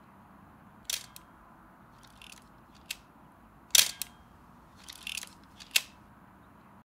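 A camera shutter clicking several times, the loudest a little under four seconds in, with softer mechanical clicks in between, over a faint steady hiss.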